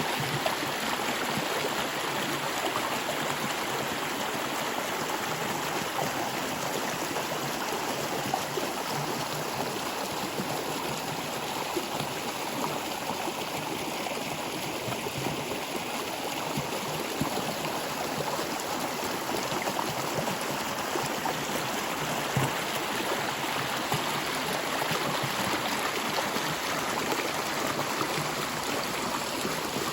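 A stream of water flowing steadily, with a continuous rushing and small gurgles and trickles.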